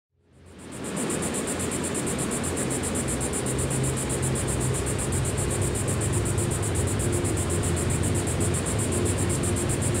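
A cicada buzzing close by in a rapid, even pulse, over a soft ambient synth pad with low held notes. It fades in during the first second.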